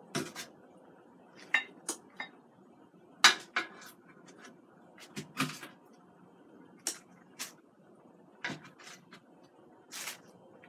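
Kitchen tongs clicking and knocking against the grill's cooking pot as cooked chicken wings are lifted out: a dozen or so sharp clacks at uneven intervals, the loudest a little over three seconds in.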